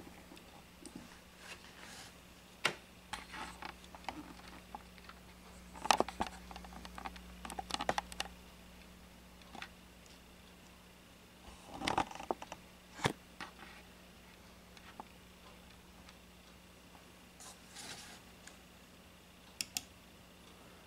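Scattered clicks, taps and light rustling of hands handling things at a desk, in clusters, over a faint steady low hum.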